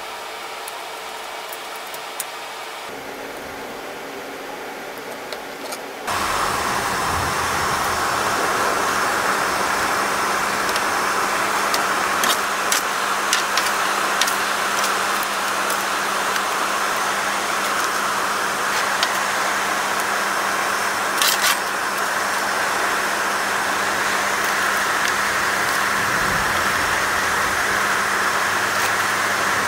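A forge running with a steady roar that comes on suddenly about six seconds in, with a few short clicks and taps over it.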